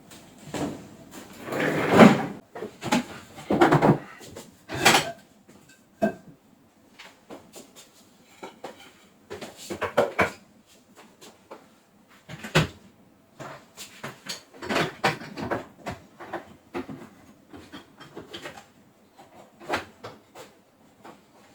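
A series of irregular knocks, clicks and short rattles of hard objects being handled, loudest about two seconds in.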